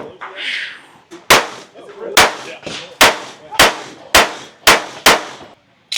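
Seven shots from a .22 LR Ruger Mark IV 22/45 pistol fired in a quick string, each a sharp crack that dies away fast, coming closer together toward the end.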